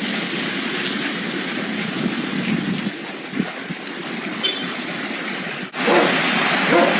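Steady rush of a hailstorm, hail and rain beating down in gusting wind, with a few sharper knocks about midway. It cuts off abruptly near the end and another recording starts with a louder rush.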